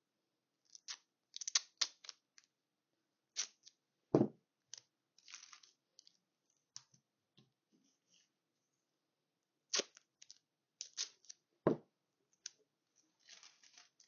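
Silver 3M duct tape pulled off the roll and torn into short strips by hand, in a series of brief scratchy rips, with parchment paper rustling. Two dull knocks, about four seconds in and again about twelve seconds in, are the loudest sounds.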